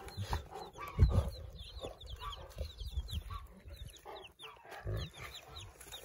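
Day-old Jersey Giant and Leghorn chicks peeping continuously, many short high falling peeps overlapping from several birds. A few low thumps break in, the loudest about a second in.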